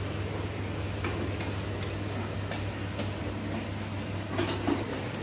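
Scattered light clicks and taps from bicycle parts being handled, a few close together near the end, over a steady low hum.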